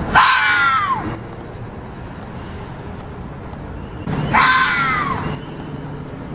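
Fox screams used as a creature sound effect: two harsh, high cries about four seconds apart, each about a second long and falling in pitch, over a faint low rumble.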